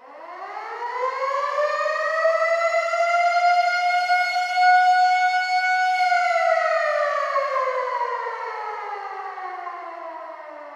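Civil defense air raid siren starting from silence and winding up, rising in pitch over about two seconds to a steady high wail. About halfway through it begins winding down, its pitch falling slowly and its level fading.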